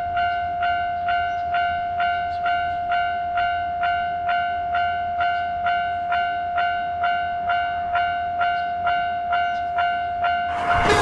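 Railroad crossing warning bell ringing steadily at about two strikes a second over a constant tone. Near the end a passing train comes in with a loud rush.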